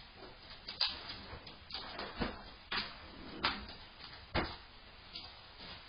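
A series of about seven sharp knocks or taps, irregularly spaced roughly half a second to a second apart.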